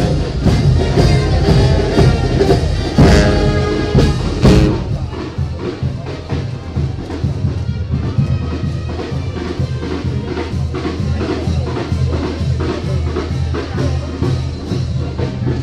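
Live brass band with sousaphones and drums playing, loudest in the first few seconds with full brass chords, then a steady drum beat under a strong bass line.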